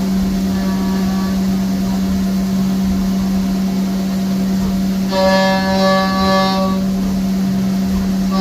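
A CNC milling machine roughing aluminium soft jaws. The spindle gives a steady low tone throughout, and a higher ringing whine swells in as the end mill bites into the aluminium, strongest from about five to seven seconds in.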